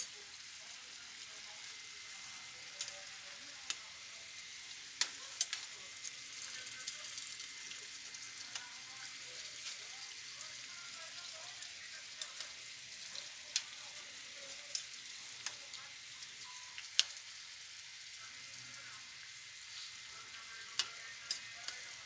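A pan of chicken afritada in tomato sauce simmering on the stove, giving a steady hiss. Scattered sharp clicks and taps come from a spoon stirring and knocking against the pan.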